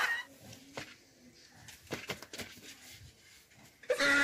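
A burst of laughter breaks off, then faint rustles and light knocks as a woven bamboo basket and sacking are pulled over a crouching person. A loud voice comes in near the end.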